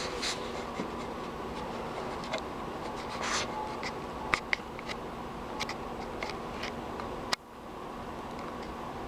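Small pet moving about in its cage: scattered light scratches and clicks over a steady background hum, with a sharp click about seven seconds in, followed by a brief dip in the sound.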